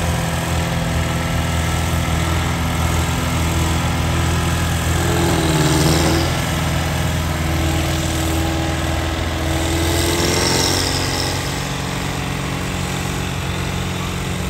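Diesel engine of a Ford farm tractor working hard under load as it pulls a weight-transfer sled. It runs steadily and swells a little louder about six seconds in and again near ten seconds.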